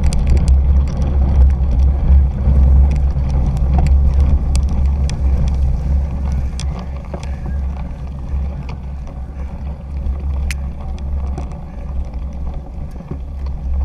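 Cyclocross bike riding over rough, muddy grass: a steady rumble and wind buffeting on the bike-mounted action camera's microphone, with scattered sharp clicks and rattles from the bike. The rumble eases about halfway through as the bike slows.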